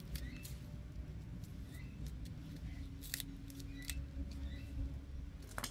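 A small packet holding a new valve stem seal being torn open and handled, its wrapper crackling with sharp snips and clicks, the strongest about three seconds in and again near the end.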